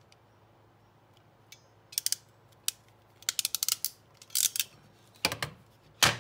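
Hand crimping tool clicking as it crimps a spade connector onto a drop-feeder wire: a few sharp clicks from about two seconds in, a quick run of clicks, and a louder click near the end.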